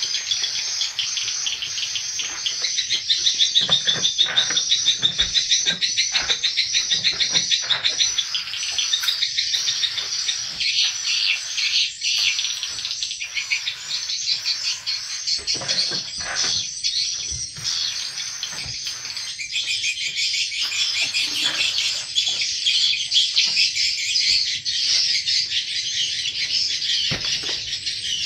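Swiftlets twittering: a dense, unbroken chorus of rapid, high chirps.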